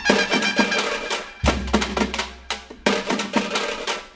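Outro music with drums: a steady beat of sharp percussive hits, with a deep bass coming in about a second and a half in.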